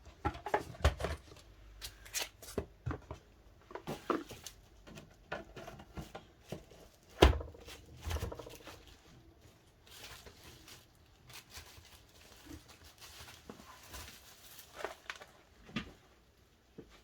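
DVD box-set packaging being handled and set down: scattered taps, clicks and rustles of card and plastic, with one louder knock about seven seconds in and quieter handling after that.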